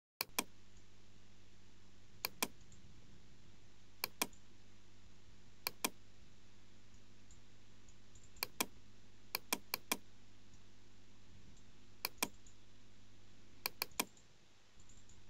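Computer mouse button clicking, mostly in quick double-clicks about every one and a half to two seconds, over a low steady hum.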